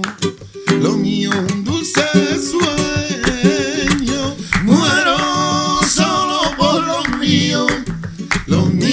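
Acoustic guitar strummed under a voice singing a song with long, wavering, ornamented lines.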